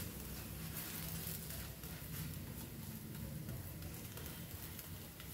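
Paratha frying in ghee on a hot tawa: faint steady sizzling with scattered small crackles, over a steady low hum.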